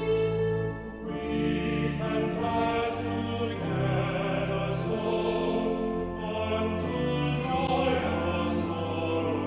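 Choir singing with instrumental accompaniment, in slow held chords. The hissing consonants of the sung words come through several times.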